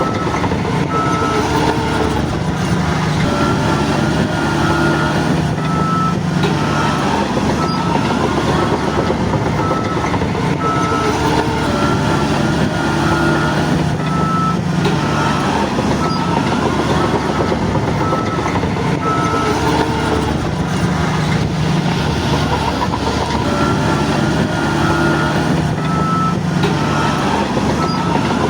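Shantui DH17 bulldozer's diesel engine working, its note swelling and easing in repeated cycles every few seconds, while its reversing alarm beeps on and off throughout.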